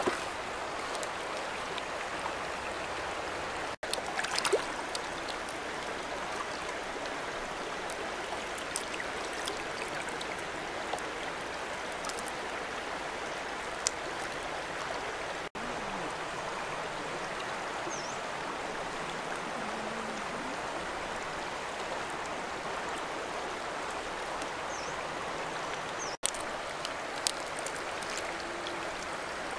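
Shallow river water running over rocks, a steady, even rush, with a few faint small clicks now and then.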